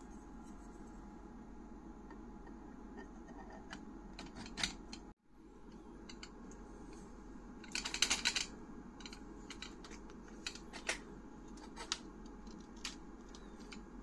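Small clicks and rattles of hard 3D-printed plastic parts as a phone is fitted and clamped into a tripod phone holder, with a dense run of clicks about eight seconds in and single clicks scattered around it, over faint room tone.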